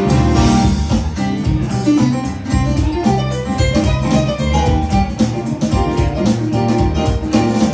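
A small live band plays: keyboard, drum kit and plucked upright bass.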